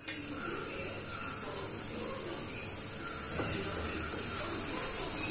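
Bitter gourd pakoda deep-frying in hot oil in a steel kadai: a steady sizzling hiss as more batter-coated slices are dropped into the bubbling oil.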